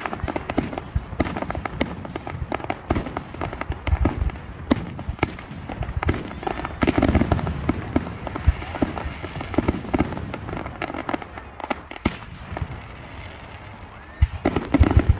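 Aerial fireworks display: rapid bangs of shells bursting overhead mixed with crackling. The bangs come thick and fast, thin out briefly, then a fresh cluster of loud bangs comes near the end.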